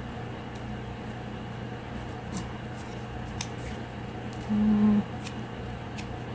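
Faint clicks and taps of a smartwatch and its box being handled, over a steady low hum. A little over two-thirds of the way in comes a louder short low tone lasting about half a second.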